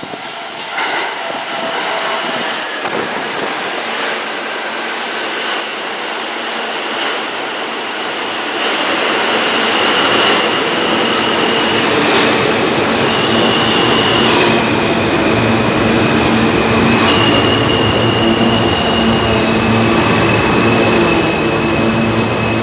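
New York City subway train of stainless R160-type cars rolling into an underground station and braking, getting louder as it comes alongside. From about nine seconds in, high steady wheel and brake squeals shift pitch in steps over a low steady motor hum and the rumble of the wheels.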